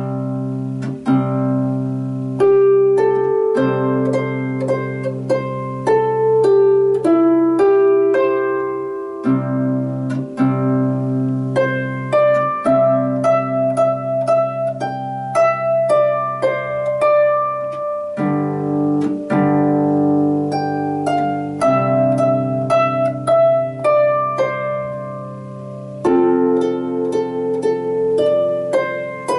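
Lever harp played with both hands: a simple plucked melody over low bass notes that ring on beneath it, the strings left to sound and fade between notes.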